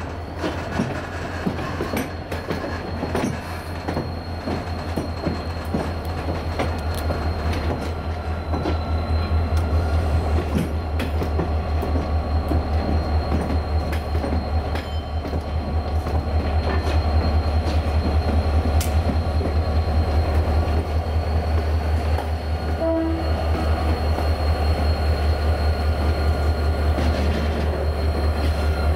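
Renfe class 333.3 diesel locomotive running with a deep, fast, evenly pulsing engine rumble that grows louder over the first half. Slow-moving train wheels click over the pointwork, and a faint steady high whine sits above it all.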